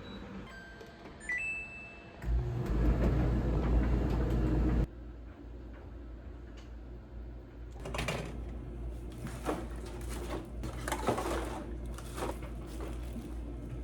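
A household appliance's control panel gives a couple of short electronic beeps, then a loud motor hum runs for about two and a half seconds and cuts off sharply. Light clattering of objects being handled follows in the second half.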